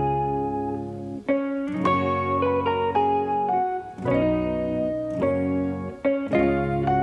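Background music: a plucked guitar tune over a low bass line, the notes changing every second or two.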